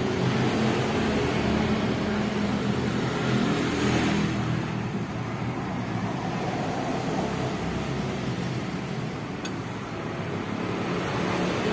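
Suzuki GT750's water-cooled two-stroke triple engine running steadily, a little quieter for a few seconds near the end.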